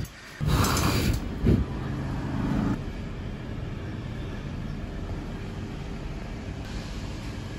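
Metal clanking and scraping about half a second in, a single knock, a short ringing, then a steady low hum.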